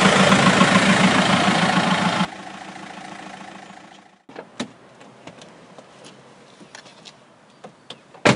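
Small van's engine running as it pulls into a parking space, cutting off abruptly about two seconds in, followed by a quieter engine hum. After about four seconds come scattered light clicks and knocks, and one sharp knock near the end.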